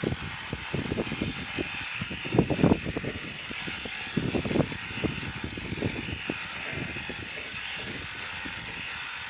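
Strong wind buffeting the microphone in irregular gusts, over a steady hiss of wind and rain.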